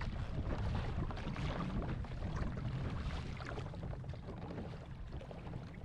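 Steady wind buffeting the microphone and water sloshing around a fishing kayak at sea.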